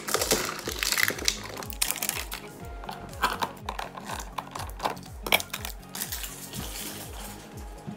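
Clicks and crackles of a clear plastic tub and its plastic wrapping being opened and handled, over background music with a steady beat.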